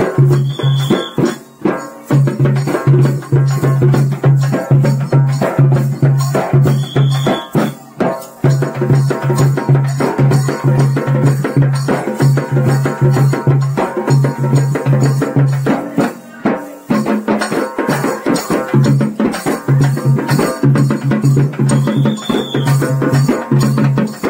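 Lezim music: the jingling metal discs of lezims shaken in rhythm over a steady, fast drumbeat, with a brief break about two-thirds of the way through.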